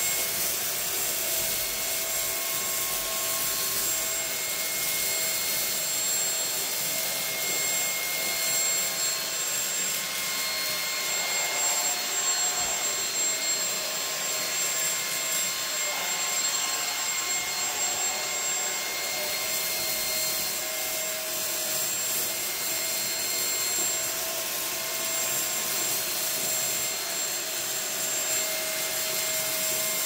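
YOKEKON cordless stick vacuum cleaner running steadily on its second speed setting: a continuous rush of air with a steady motor whine, its motorized brush head passing over rice scattered on a carpet.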